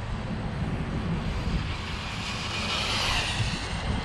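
Brushless electric motor and drivetrain of a Redcat Volcano EPX Pro RC monster truck whining at full-throttle speed on 3S, swelling to a peak about three seconds in and then falling away. A low rumble, likely wind on the microphone, runs underneath.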